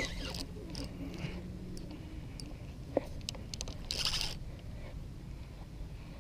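Scattered clicks and knocks of spinning rod and reel handling while a hooked fish is being played, with a sharp knock about three seconds in and a short burst of hissing noise about a second later.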